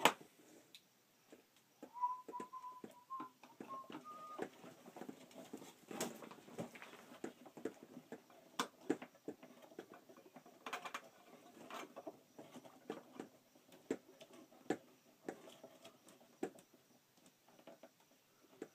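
Scattered small clicks, taps and scrapes of thick 6-gauge cables being handled and worked into the terminals of a wall-mounted solar charge controller. About two seconds in comes a short, faint, wavering whistle-like tone.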